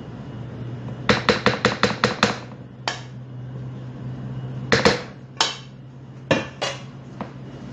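A spatula knocking and scraping against a stainless steel mixing bowl and a round aluminium cake pan while the last of the cake batter is scraped out: a quick run of about seven metallic knocks just after a second in, then single knocks spaced out through the rest, over a steady low hum.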